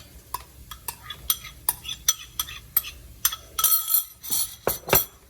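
Metal cooking utensil clinking rhythmically against a pan or bowl, about two to three strikes a second, while egg is worked into fried rice. Two sharper knocks come near the end.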